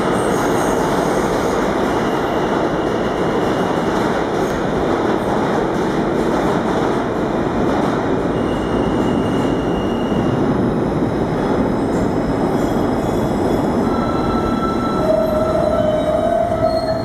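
New York City subway trains in an underground station: an R32 train pulling out and an R160B train running in, with a steady rumble of wheels on rails. A high steady squeal sets in during the last few seconds as the arriving train brakes to a stop.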